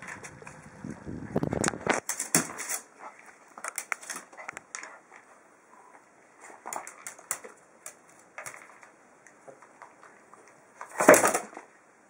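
A small dog pawing at an aluminium chest to get at a treat ball on top of it: scattered clicks and short scraping bursts, busiest early on, with a louder burst about eleven seconds in.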